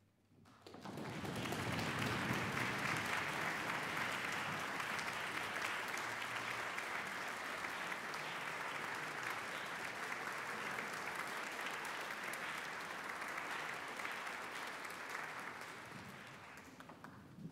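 Audience applause that swells up about a second in, holds steady, and dies away near the end.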